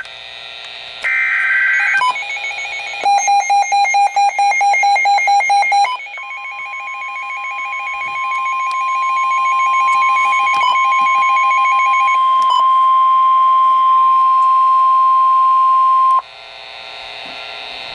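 Emergency Alert System alert tones: a short electronic data burst about a second in, a few seconds of fast beeping, then one long steady alarm tone held for about ten seconds that cuts off near the end.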